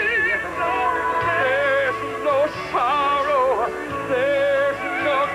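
Southern gospel vocal group singing live with instrumental backing, in held notes with vibrato over a steady bass.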